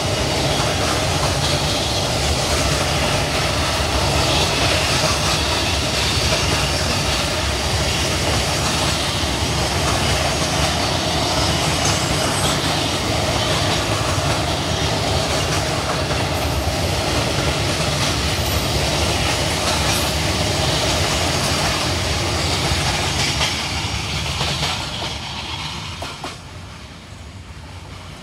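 Freight train wagons rolling past on the track, with a steady wheel-on-rail rumble and clatter that fades away about 25 seconds in.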